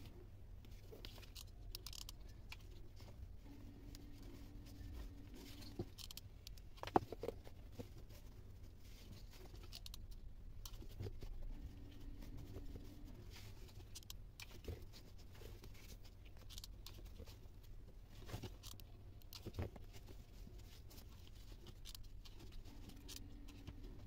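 Quiet close-up crafting sounds: scissors snipping cardboard, a pen scratching on cardboard, and the rustle and tap of card and paper being handled, with one sharper click about seven seconds in. A faint low hum comes and goes in the background.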